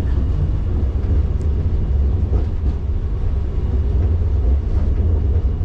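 Diesel train running past with a steady low rumble.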